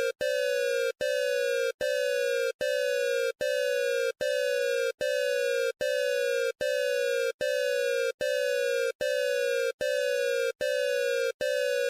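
Electronic emergency alert alarm tone, a harsh buzzy beep repeating about five times every four seconds, each beep sliding slightly down in pitch.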